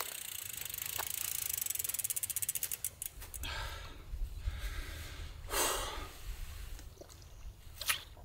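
Bicycle freewheel hub ticking fast as the wheel coasts, the clicks spreading out and stopping about three seconds in. After that come a couple of rustling swells with a low rumble, and a sharp click near the end.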